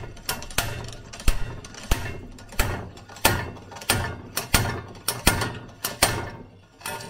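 Slide hammer puller being worked: the sliding steel weight slams against its stop again and again, a dozen or so sharp metallic clanks about every half second. It is pulling the inner seal off a front steering knuckle.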